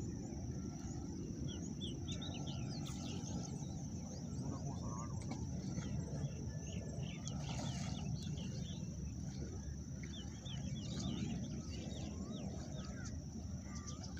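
Many birds chirping, with short, quick calls scattered throughout, over a steady high-pitched whine and a low steady rumble.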